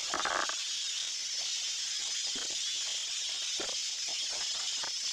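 Rubber mallet tapping a large floor tile to bed it into the mortar, a brief knock just after the start, followed by scattered light knocks, over a steady hiss.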